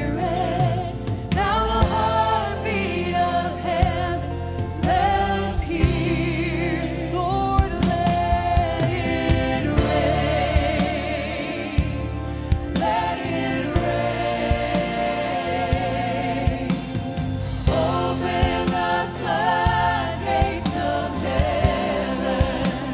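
A woman singing a gospel song live into a handheld microphone, her held notes wavering with strong vibrato, backed by a live band with a steady bass line and regular drum hits.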